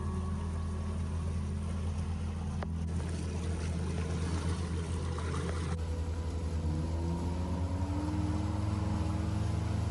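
Four-stroke outboard motor running with the boat under way, water rushing past the hull. The engine pitch rises in the second half as it picks up speed.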